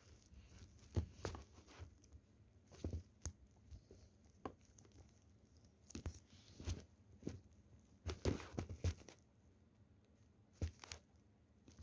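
Slime being squeezed and pulled by hand: scattered sticky clicks and short crackly squelches, with a busier stretch about eight seconds in.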